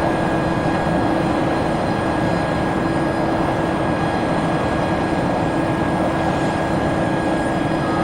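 Airbus A400M's four TP400 turboprop engines running steadily: a loud, even drone with a constant low hum and a thin high whine.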